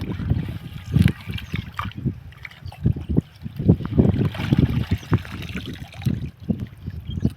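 Water splashing and sloshing in irregular surges, as a fishing net is worked through shallow water.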